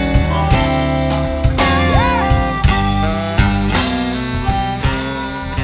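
Background music with a steady beat, and a note that bends up in pitch about two seconds in.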